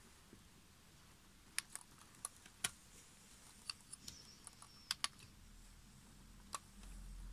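Scattered light plastic clicks and taps, about a dozen, some in quick pairs, as the bare circuit board of a DJ controller, with its button caps and knobs still fitted, is handled. A low hum comes in near the end.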